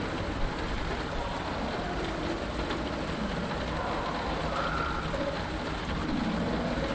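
Steady rain pattering on a fighter's cockpit canopy, with faint swamp creature and bird calls scattered through: short low croaks and chirps, and one higher call about four and a half seconds in. A single tap about half a second in.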